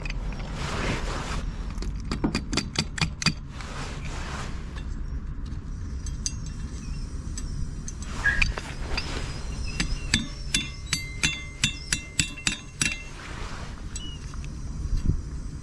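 Quick metal-on-metal taps and clinks from a tool tapping a lead masonry anchor into place. About two seconds in comes a rapid run of roughly eight sharp taps. From about ten to thirteen seconds in comes a longer run of ringing metallic clinks.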